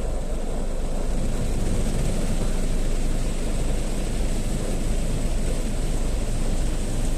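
Automatic car wash running: a steady, loud rumble of the wash machinery with water spraying over the car.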